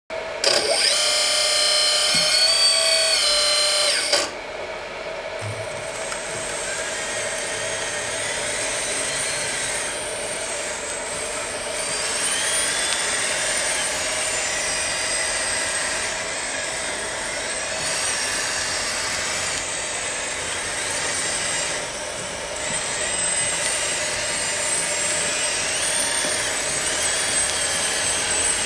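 Kabolite K350-200 RC hydraulic excavator running, its hydraulic pump and motor giving a steady whine with higher tones that rise and fall. The sound is loudest and fullest for the first four seconds, then settles a little quieter.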